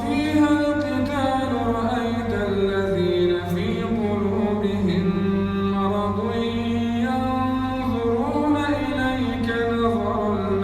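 A male reciter chanting verses of the Quran unaccompanied, in the slow melodic tajweed style. He holds long notes that glide up and down between short pauses for breath.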